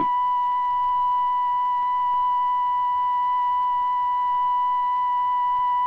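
A steady, high-pitched electronic signal tone held without a break, at one pitch with fainter overtones.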